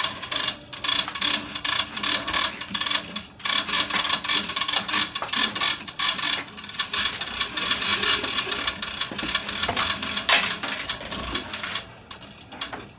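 Hosetract LB-330 hose reel's ratchet pawl clicking rapidly as the reel spins with the hose being run out and rewound. The clicking stops shortly before the end.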